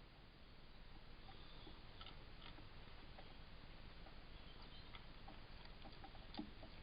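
Quiet woodland ambience through a trail camera's microphone: low hiss with scattered faint ticks and clicks, one a little louder near the end, and faint high chirps.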